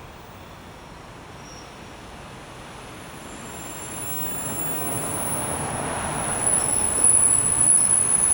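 Passenger train coming into the station, its rumble growing steadily louder as it nears. About halfway through, a thin high-pitched squeal from the train sets in and strengthens.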